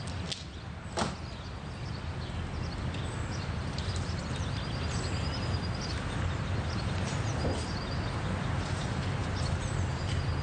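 A car door of a BMW convertible slams shut about a second in, then a steady outdoor background with faint bird chirps.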